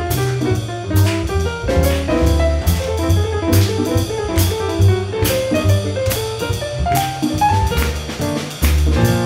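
Jazz combo playing a swing tune, with acoustic piano carrying the lead line over upright bass and drum kit.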